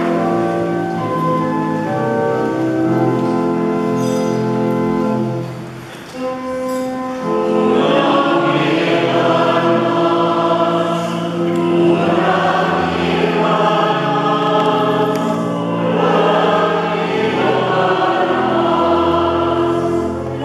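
Church choir singing with organ accompaniment. There is a brief lull about six seconds in, then the singing comes back fuller.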